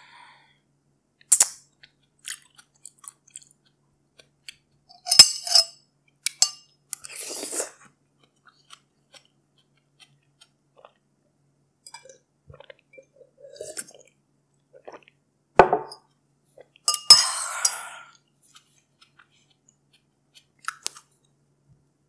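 Drinking and eating from a glass with a metal spoon: a few sharp clinks of the spoon against the glass, sips and slurps of the drink, and chewing and swallowing sounds close to the microphone.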